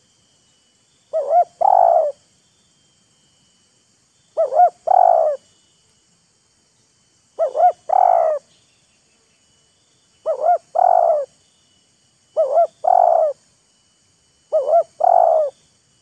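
Spotted dove cooing: six calls in a row, each two short notes followed by a longer rolling coo, repeated every two to three seconds and coming a little closer together toward the end.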